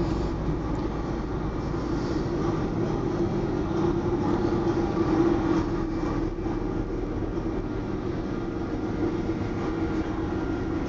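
The ferry Félix-Antoine-Savard's engines running steadily under way: a constant low drone with a steady hum.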